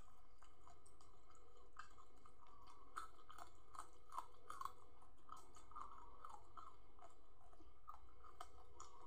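A person chewing and crunching food close to the microphone, with raw green vegetable stems and fish eaten by hand. Irregular crisp, wet clicks of chewing, thickest about three to four and a half seconds in.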